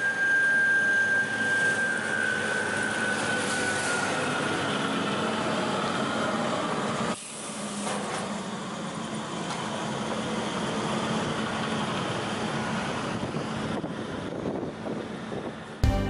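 PAUL K3U800 arbor multi-rip saw running, a steady machine noise with a high whine that slowly falls in pitch over the first few seconds. It breaks off briefly about seven seconds in, then goes on as a steady hum.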